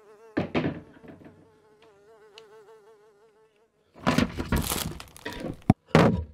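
A fly buzzing with a wavering pitch for about three and a half seconds. Then loud crinkling of a plastic bin liner as a hand reaches into the bin, with a sharp click near the end.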